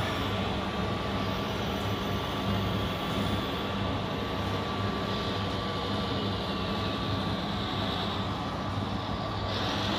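Radio-controlled model truck running: small electric motors whine over a steady hum, one whine holding a constant pitch while a higher one slides slowly lower and jumps back up near the end.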